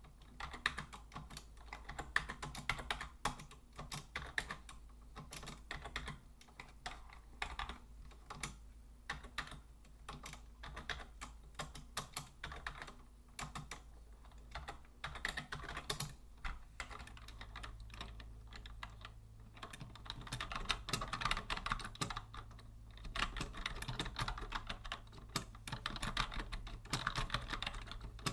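Continuous typing on a vintage Logitech Deluxe 104 wired rubber-dome keyboard: a rapid, irregular run of key clicks and clacks that grows denser and louder about two-thirds of the way through.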